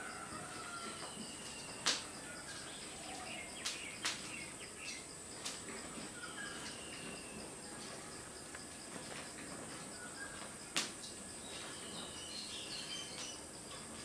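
Quiet ambience of birds chirping over a steady high insect drone, with a handful of sharp cracks from a burning wood fire, the loudest about two seconds in and near eleven seconds.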